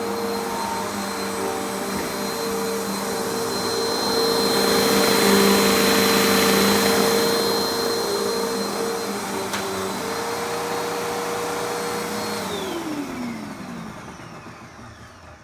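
Hoover vacuum cleaner motor running with a steady whine, louder through the middle. About three-quarters of the way through it is switched off and winds down, its pitch falling away to quiet.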